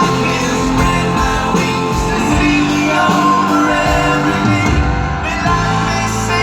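Live rock band music from a full band playing a slow song, with singing over it.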